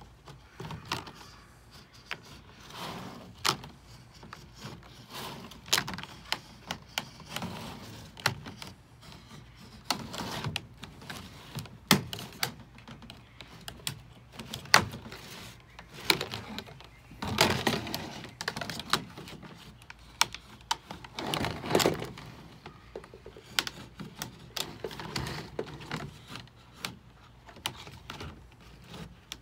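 A utility knife cutting through a vinyl siding outside corner piece: irregular sharp clicks and ticks from the blade and the stiff vinyl, with a few longer scraping cut strokes.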